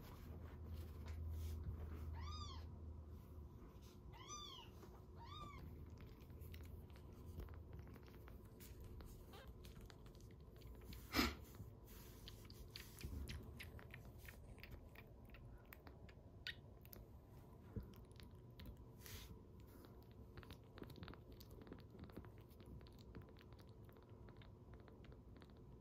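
A four-day-old kitten mewing three times in the first six seconds, short thin cries that each rise and fall in pitch. Later come faint scattered clicks and one sharp click about 11 seconds in.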